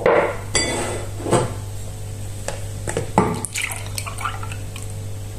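Glass and kitchenware clinking and knocking on a countertop, several sharp knocks in the first few seconds, with a short bit of liquid sound in the middle, over a steady low hum.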